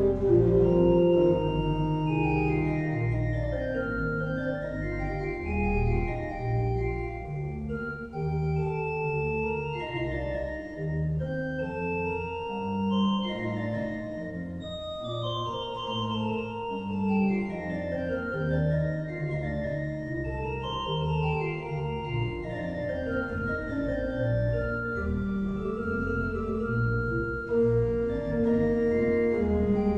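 Background organ music: held chords over a slow-moving bass line, with runs of notes rising and falling above.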